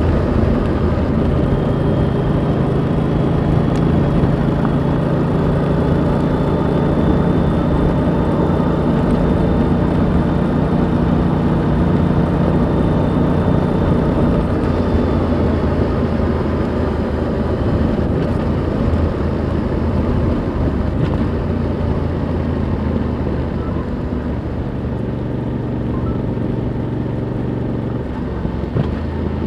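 Onboard sound of a stock 2021 Yamaha MT-07's 689 cc parallel-twin engine and Euro 5 exhaust while riding, at fairly steady revs. Past the midpoint the engine note drops to a lower pitch and gets slightly quieter.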